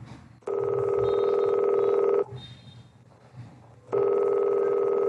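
Telephone ringing: two long electronic rings with a short pause between them.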